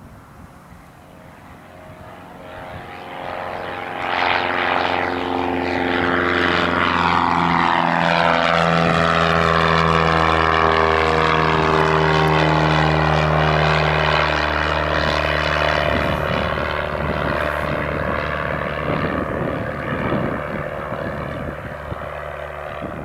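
Piper PA-28 single-engine piston light aircraft climbing out at full power just after takeoff, its engine and propeller drone growing louder as it approaches. The pitch drops as it passes the listener, and the drone then fades slowly as it climbs away.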